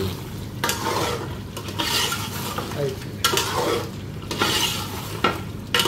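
Mutton karahi sizzling in an aluminium pot while a steel ladle stirs it, scraping against the pot in repeated strokes about once a second.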